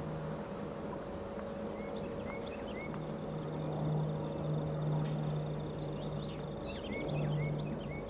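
Small birds chirping and twittering in short, quick high notes, more of them in the second half, over a low steady hum that comes and goes.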